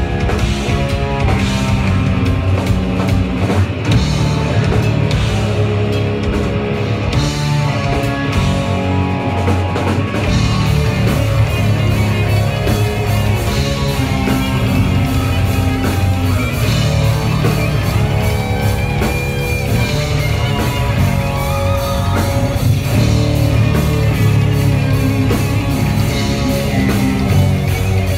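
Live rock band playing loud: electric guitars over a drum kit. About ten seconds in the drums fill out with dense cymbal hits.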